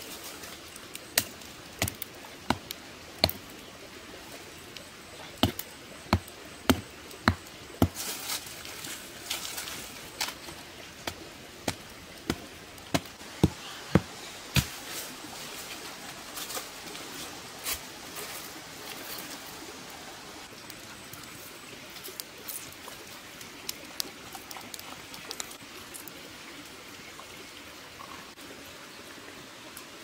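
Sharp knocks of wood being struck, in runs of about one every half second to a second through the first half, then only scattered lighter clicks. A campfire crackles lightly underneath.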